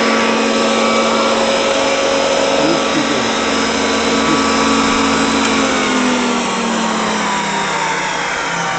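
Belsaw 9142 12-inch wood planer running with a loud, steady whirring hum; a few seconds before the end its pitch slides down as the machine slows.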